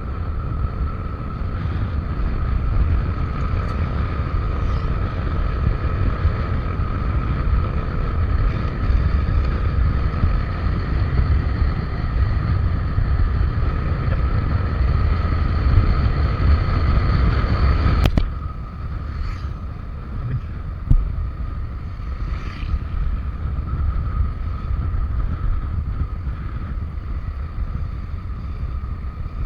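Suzuki Avenis 125 scooter being ridden, with heavy wind rumble on the microphone over a steady engine whine. About eighteen seconds in, the whine drops away suddenly and the riding noise becomes quieter.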